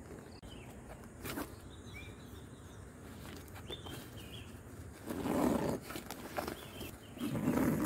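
Hands handling a nylon backpack: fabric rustling, a light click about a second and a half in, and two louder spells of rustling near the end as the pack's top and drawstring collar are pulled and worked.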